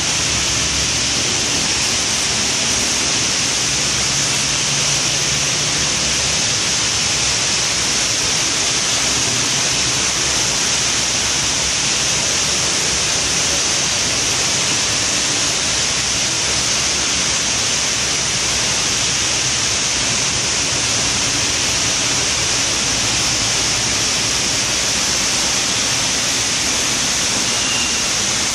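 Heavy rain falling steadily, a loud, even hiss with no breaks.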